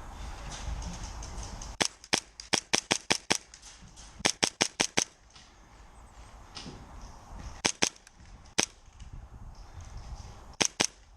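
Airsoft gun firing in quick strings of sharp shots, several a second, then a few single shots and pairs.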